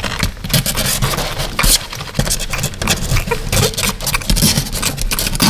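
Newborn puppy's paws scratching and pushing at her box in a dense, irregular patter while she drinks milk from a syringe. This is the pushing reflex she would use on her mother's teats while nursing.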